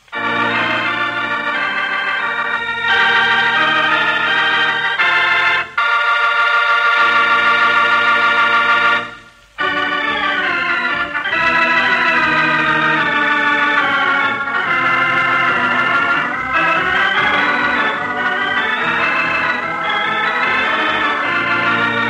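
Organ music: held chords moving from one to the next, with two short breaks about six and nine and a half seconds in.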